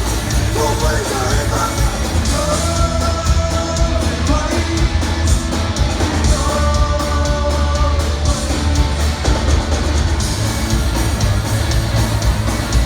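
Loud rock song: a band with a singer holding long notes, about two and a half seconds in and again about six and a half seconds in.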